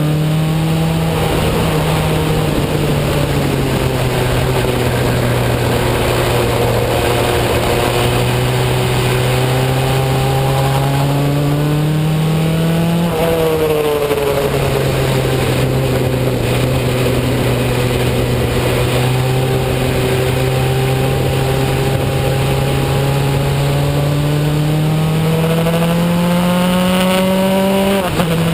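Formula Enterprise single-seat race car's engine heard onboard at speed: long pulls whose pitch climbs slowly, with a sharp drop in pitch about 13 seconds in and again near the end, over a steady hiss.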